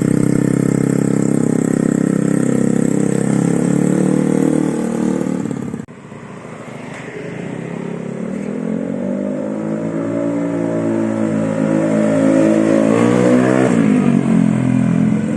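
Honda Vario 110 scooter engine, carburetted and bored to 130cc, running through an ABF Racing oval R-Series full-system racing exhaust with a half-packed muffler. The engine is held at steady revs, the sound breaks off abruptly about six seconds in, then the revs climb steadily and fall back near the end.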